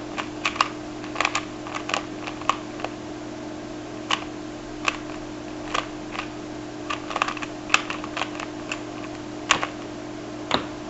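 Rubik's cube layers being twisted by hand: irregular plastic clicks and clacks, some single and some in quick runs of two or three, over a steady low electrical hum.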